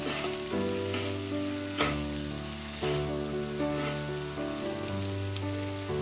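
Noodles and tomato masala sizzling in a hot oiled pan as they are tossed with a fork, with a sharp click or two of the fork against the pan. Soft background music with slow chord changes sits under it.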